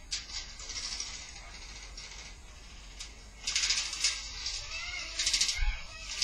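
Airsoft guns firing in rapid bursts, a fast dry clatter heard twice, about three and a half seconds in and again near five seconds, over a steady hiss with a few scattered clicks.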